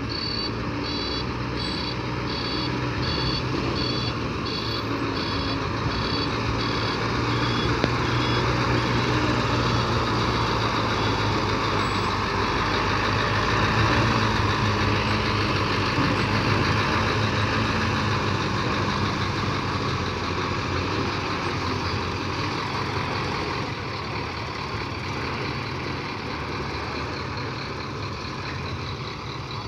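Diesel engine of a Mercedes-Benz 3544 eight-wheel tipper truck running as the truck reverses. A reversing beeper sounds about twice a second for the first seven seconds or so. The engine grows louder about halfway through as the truck passes close, then eases off.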